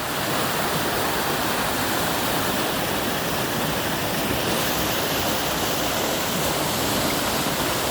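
Waterfall pouring steadily over rocks, a loud, even rush of falling water.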